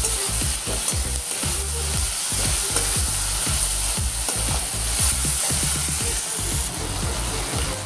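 Chopped onions and tomatoes sizzling steadily in hot oil in a kadai as a metal spatula stirs and scrapes them in repeated strokes, frying them down until soft.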